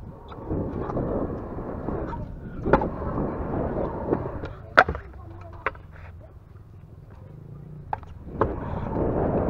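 Stunt scooter wheels rolling on a concrete skatepark bowl, with several sharp clacks from the scooter striking the concrete; the loudest comes about halfway through. The rolling drops away for a few seconds in the second half, then picks up again near the end.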